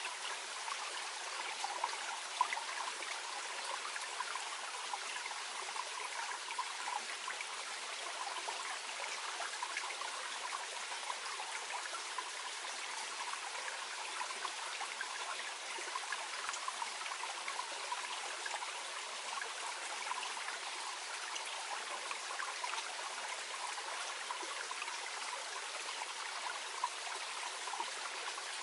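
Small mountain stream flowing gently over stones, a steady babbling and trickling of water.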